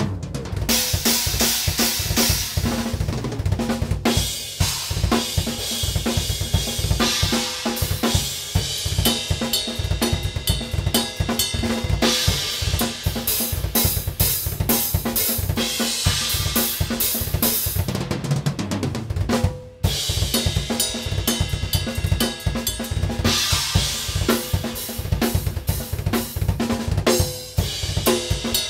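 Acoustic drum kit played solo at a fast pace: rapid drum strokes on the drums and toms, with repeated cymbal crashes. There is one short break in the playing about twenty seconds in.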